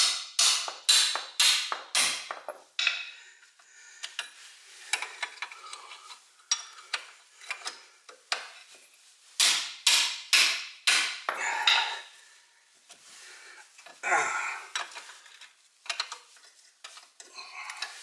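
Hammer striking a wrench to break loose a rusty brake caliper bolt: a quick run of sharp metal blows, about three a second, in the first two seconds and again about nine to eleven seconds in, with lighter metallic clinks between.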